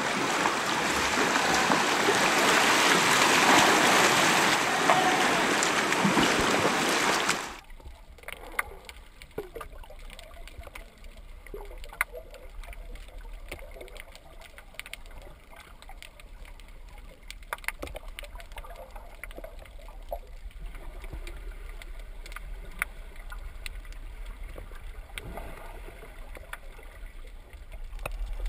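A loud, even rushing noise that cuts off suddenly about seven seconds in, followed by muffled underwater sound: a low rumble with scattered sharp clicks and gurgling bubbles.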